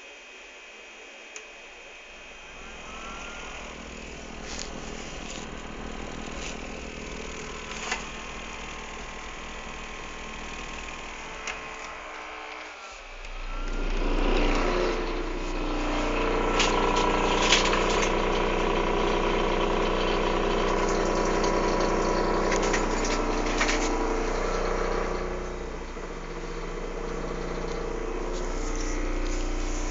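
Desktop computer running, its fans and hum rising about halfway through to a much louder, steady machine-like drone with a few faint clicks.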